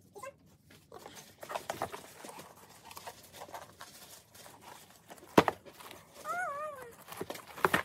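Wrapping paper rustling and crinkling as a gift box is wrapped, with a sharp snap about five and a half seconds in. Near the end comes a short wavering, high-pitched call, rising and falling.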